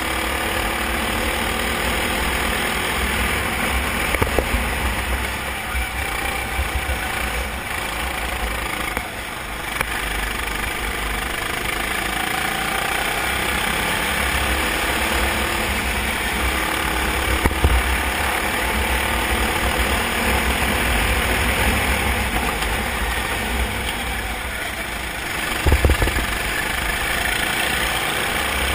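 Racing kart engine heard from on board, running under load with its pitch rising and falling as the throttle opens and closes through the corners. A few short thumps cut through, the loudest near the end.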